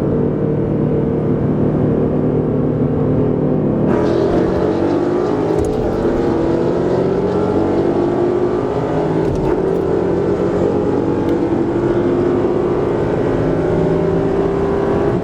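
Car engine cruising steadily, then going to full throttle about four seconds in, its pitch climbing slowly as the car accelerates hard in a rolling-start race.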